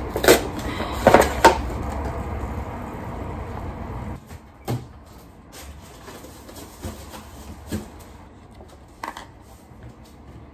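Crinkling and crackling of an instant noodle bowl's plastic lid and packets being opened, over a low steady hum that stops about four seconds in. After that come a few scattered knocks and clatter of a kitchen cabinet door and containers being handled.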